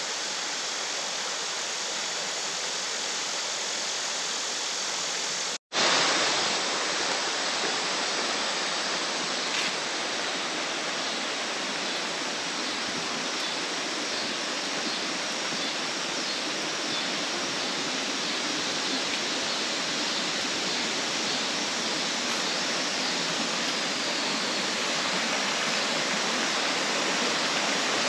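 Steady rush of flowing water from a spring-fed stream or cascade. It cuts out for a moment about six seconds in and comes back slightly louder.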